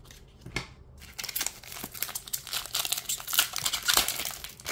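Foil Pokémon card booster pack being crinkled and torn open: a light tap, then a dense crackling that starts about a second in and grows louder.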